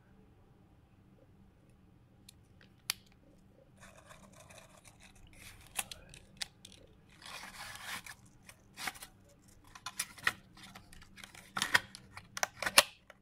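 Packaging being handled: a foil-backed plastic blister pack of capsules, a paper leaflet and a cardboard box rustling and crinkling, with sharp clicks and snaps. It begins with a single click, then the noises come thicker and louder over the last few seconds.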